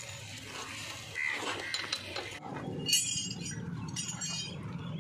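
Light metallic clinks and taps of hand tools working at a motorcycle's rear wheel and drive chain, with a cluster of high ringing clinks in the second half.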